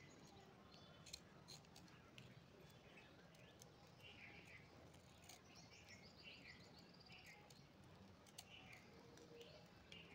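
Near silence, with a few faint snips of scissors cutting through sequined lace trim and a bird chirping faintly over and over, about once a second.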